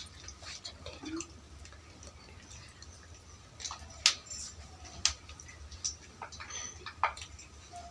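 Eating sounds: scattered sharp clicks and taps, the loudest about four seconds in, over a low steady hum.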